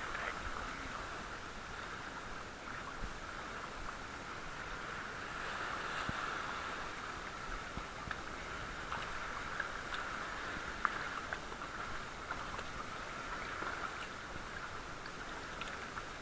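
Shallow seawater washing and sloshing steadily around rocks, with a few faint clicks or small splashes.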